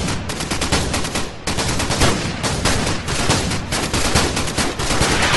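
Rapid, continuous automatic gunfire: dense strings of shots with no pause.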